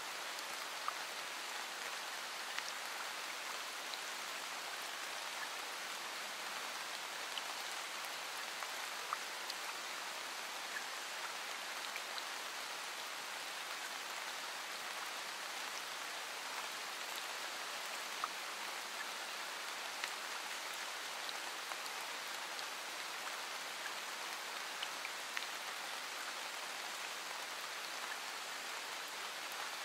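Steady rain, an even hiss with scattered sharper ticks of single drops.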